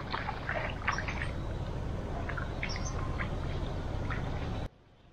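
Birds calling with many short, irregular squawks and chirps over a steady low rumble. The sound cuts off suddenly near the end.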